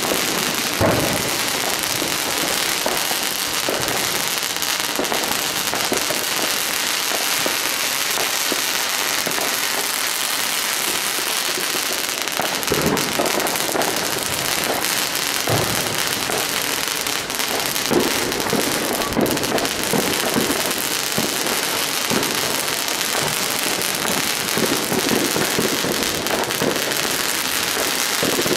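Fireworks going off continuously: a dense, steady crackle with scattered louder bangs, the sharpest about a second in and about 18 seconds in.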